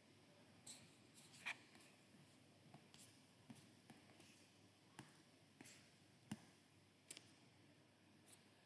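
Near silence: room tone with about ten faint, scattered clicks and taps at irregular moments.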